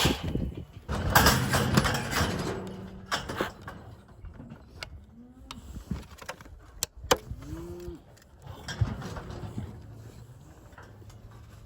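Loud clanging and rattling of a steel cattle handling chute as a heifer moves through it. Then two short moos from a heifer, each rising and falling, a couple of seconds apart.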